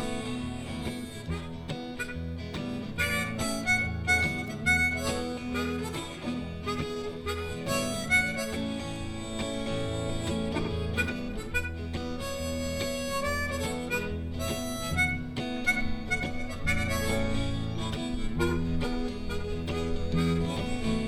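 Live blues band playing an instrumental break, a harmonica carrying the lead over guitar and a steady bass line.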